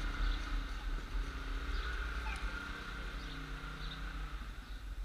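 Outdoor street ambience: a low, uneven rumble with a steady high hum over it and a few short, high chirps.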